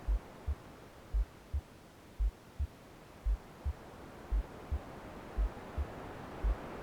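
Slow heartbeat sound, a deep lub-dub double thump about once a second, over a steady bed of white noise that softens and then slowly swells again.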